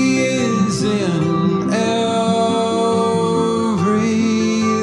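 Background song: acoustic guitar with a singing voice holding long notes that bend in pitch.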